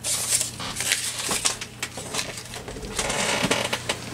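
Paper rustling and sliding as cut and torn paper pieces are handled and laid on a journal page, in several short rustles with a few light taps.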